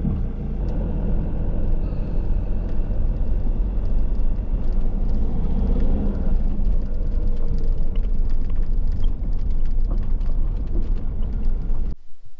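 Camper van driving: steady engine and road rumble. It cuts off abruptly near the end.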